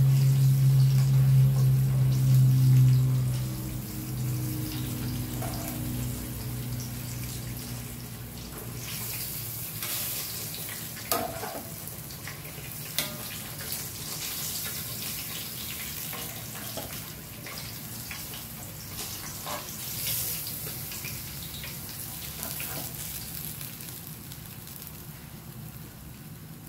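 Hot cooking oil sizzling and crackling steadily as fish pieces fry, with a few sharp clicks partway through. A low hum can be heard in the first few seconds, then it fades.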